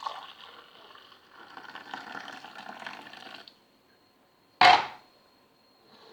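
Hot milk being poured into a cup for a few seconds, then one sharp knock about a second later.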